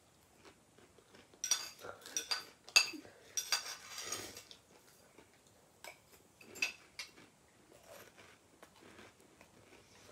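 Metal spoon clinking and scraping against a snack container while eating from it: a quick run of sharp clinks in the first half, then a few scattered ones.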